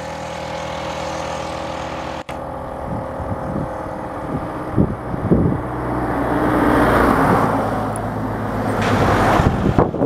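A vehicle engine hums steadily, then after a brief break about two seconds in, vehicles pass on the road. Their noise swells to a peak around the middle and again near the end, with a few low thumps of wind on the microphone.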